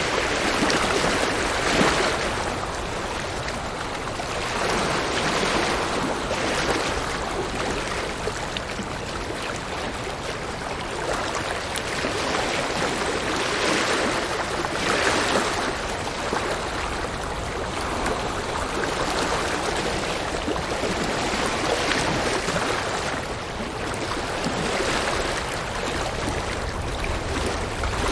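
River water rushing and splashing over rocks, a steady flow that swells and eases every few seconds.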